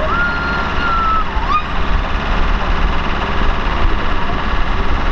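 Class 121 'Bubble Car' diesel railcars approaching, engines running with a steady low rumble. In the first second and a half a thin whistling tone jumps up, holds for about a second, then dips and rises again.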